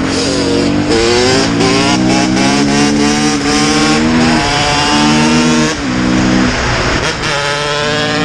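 Kawasaki KX250 single-cylinder two-stroke engine running hard through an FMF Gnarly expansion chamber and Pro Circuit Shorty silencer. The pitch climbs, then drops abruptly several times in the second half.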